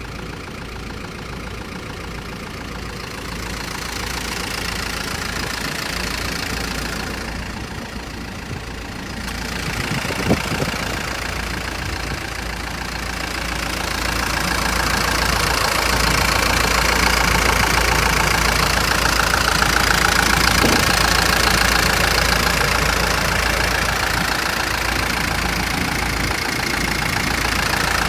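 Hino Dutro truck's N04C four-cylinder diesel engine idling steadily, growing louder about halfway through, with one short knock about ten seconds in.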